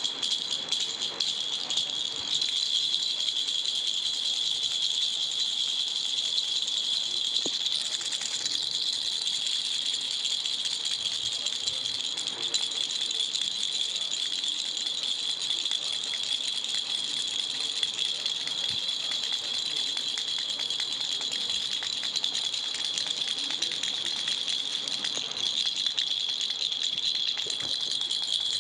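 Baby rattle toy shaken without pause: a steady, high-pitched rattling of many fast small clicks.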